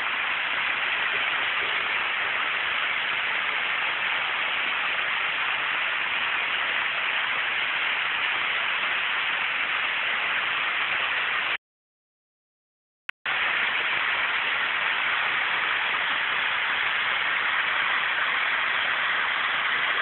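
A large waterfall: water falling steadily with a constant rushing hiss. The sound cuts out completely for about a second and a half a little past halfway, then comes back unchanged.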